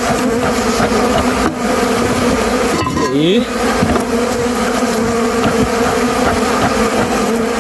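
Many honeybees flying close around the opened hive, making a loud, steady buzzing hum; about three seconds in a single bee whizzes past close by. The bees are drawn to rob honey from the exposed comb.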